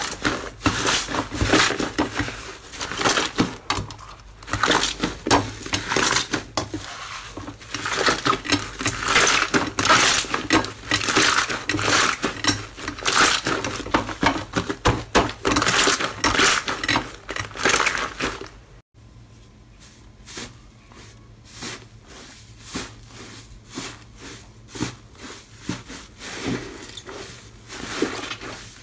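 Hands squeezing and tearing thick slime in a glass bowl: a dense, sticky crackling and popping. About two-thirds of the way through, the sound drops suddenly to quieter, sparser crackles.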